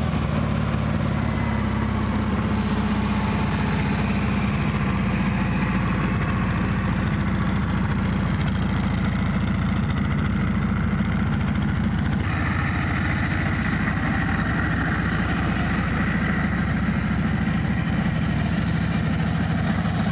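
Harley-Davidson CVO Road Glide ST's 121 cubic inch Milwaukee-Eight V-twin idling steadily on its kickstand; its sound gets a little brighter about twelve seconds in.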